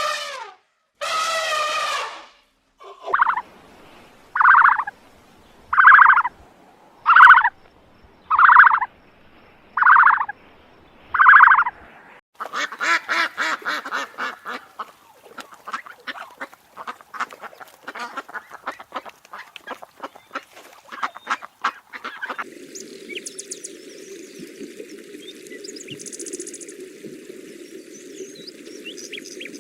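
Goose honking: a loud call, then a run of seven evenly spaced honks about a second and a half apart. Then comes a stretch of rapid, dense calls and clicks, and from about two thirds of the way in a steadier background sound.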